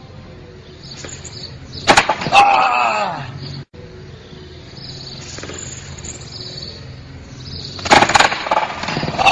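A loud clattering crash as a person falls, followed at once by a high cry sliding down in pitch; the pair comes twice, about two seconds in and again near the end, with a brief cut-out between.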